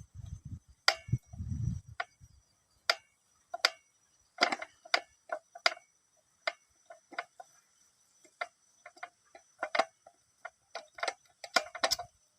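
Irregular series of sharp clicks and light knocks, two or three a second, with a few low thumps in the first two seconds, like small hard parts being handled.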